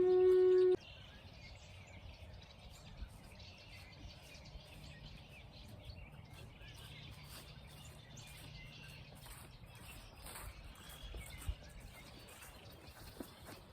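A livestock animal's call that rises in pitch and then holds, cut off abruptly within the first second; then faint outdoor ambience with scattered small bird chirps.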